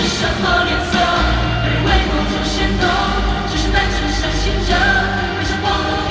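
Live pop-rock band music with held sung vocals, played loud over an arena sound system and recorded from the audience.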